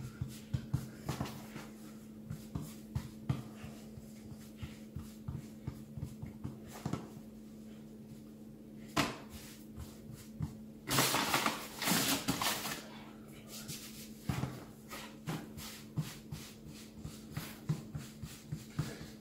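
Hands patting and pressing pizza dough flat on a floured kitchen worktop: a run of soft taps and thumps, with a louder rough rubbing noise for about two seconds starting about eleven seconds in, over a steady low hum.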